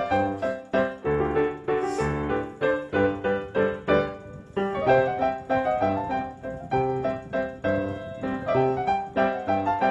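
Piano music: a lively run of quick keyboard notes over bass notes, with a brief lull about four seconds in.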